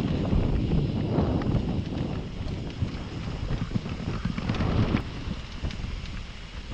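A mountain bike riding a dirt trail: wind buffets the action-camera microphone over a rumble of tyres on dirt, with frequent knocks and clatters from the bike over rough ground. It eases slightly near the end.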